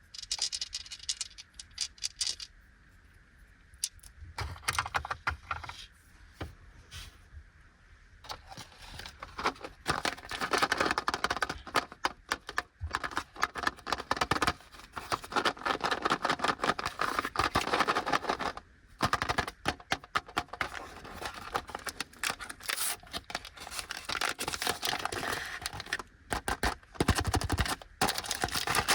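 Sweet packaging being handled and opened by hand: scattered sharp clicks and taps first, a few quieter seconds, then dense crinkling of wrappers from about nine seconds in.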